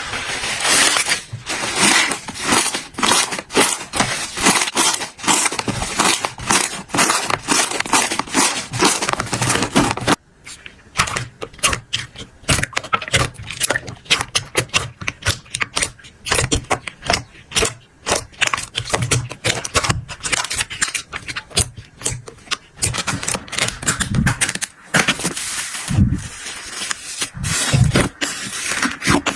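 Slime being pressed and squeezed by hand, giving dense crackling and popping clicks. About ten seconds in, the sound cuts to sparser pops with low, wet squelches.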